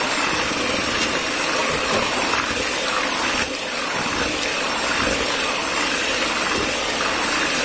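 Miyako electric hand mixer running steadily, its beaters churning a thin, runny batter: a constant motor whine over wet whisking.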